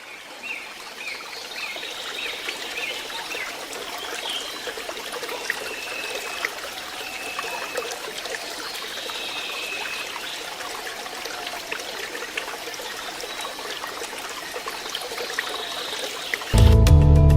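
Water trickling and running in a mountain stream, a steady rushing hiss, with a run of short high chirps over it in the first few seconds. Music comes in abruptly near the end.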